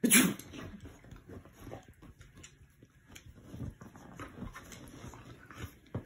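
A man sneezes loudly, once, right at the start. A springer spaniel then fusses over him, with small dog noises and movement on the sofa.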